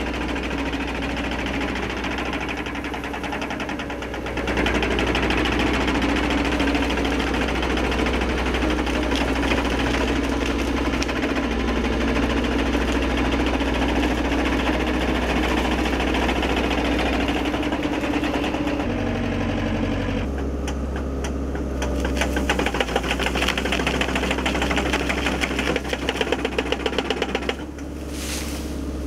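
Excavator diesel engine running under load while a hydraulic reciprocating cutter bar on its boom chatters rapidly, its toothed blade shearing through brush and small trees. The chatter grows sharper and more clattering over the last several seconds.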